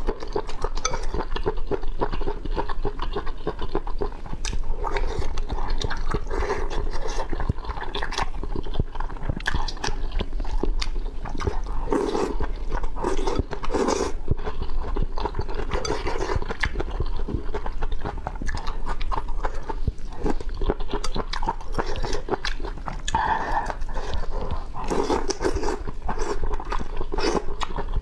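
Close-miked slurping and chewing of noodles in spicy broth: a steady run of wet mouth clicks, smacks and sucking slurps.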